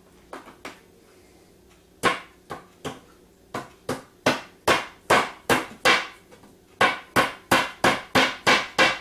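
Claw hammer tapping small drive-in fasteners into the corners of a flat-pack drawer. Two light taps come first, then a steady run of sharp strikes, about two or three a second, growing harder, with a short pause about two-thirds of the way through.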